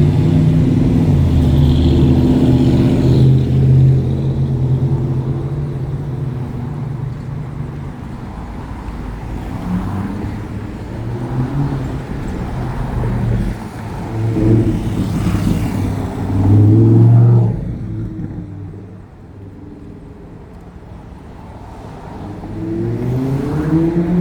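Street traffic: car engines running close by, loud for the first several seconds, then a lull, and a vehicle accelerating near the end with its engine pitch rising.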